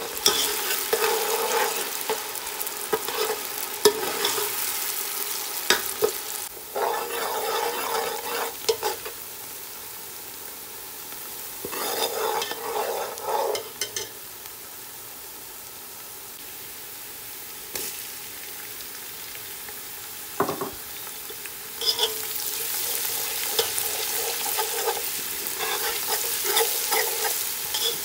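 Chopped onions sizzling in hot oil in a stainless steel pot, a steady frying hiss. A spoon scrapes and stirs through them in spells, with quieter stretches of plain sizzling between.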